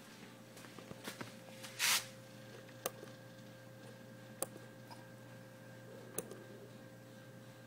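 Quiet room with a steady faint electrical hum, three sharp isolated clicks and a brief rustle about two seconds in.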